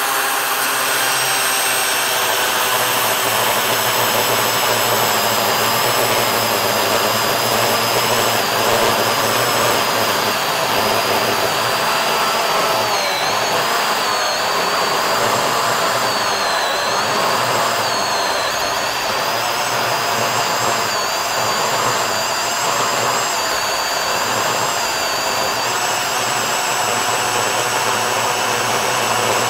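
DeWalt FlexVolt battery chainsaw with a ripping chain cutting lengthwise along the grain of a hard Australian bloodwood log, running steadily under load. The motor's high whine dips in pitch a few times as the cut goes on.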